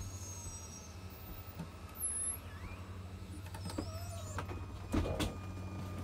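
Hydraulic slide-out pump unit running with a steady low hum as the RV's slide-outs extend, with a few knocks near the end.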